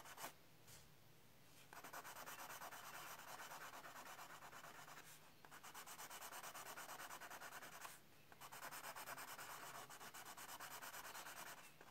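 Faint, scratchy rasp of a white Conté pencil rubbed back and forth on brown cardboard in quick shading strokes. The strokes come in three spells, starting about two seconds in, with short breaks about five and eight seconds in.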